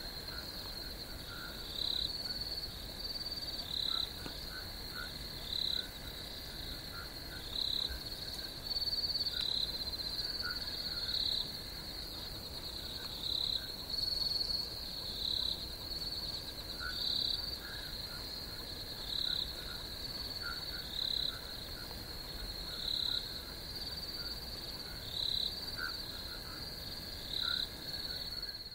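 Night pond ambience with crickets: a steady high cricket trill, with louder short calls repeating about every two seconds and fainter chirps beneath.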